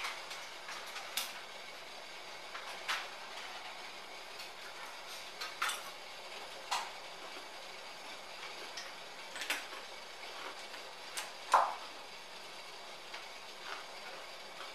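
Stainless steel pot of water heating on a gas burner: a steady hiss with irregular sharp ticks and pops as the pot and water heat toward the boil, the loudest pop about twelve seconds in.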